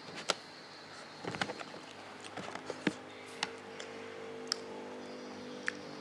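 Scattered wet clicks and smacks of someone eating with his hands: lips and mouth working on fried meat, and fingers picking at the food over a paper wrapping. About three seconds in, a steady low hum with several tones starts up beneath it.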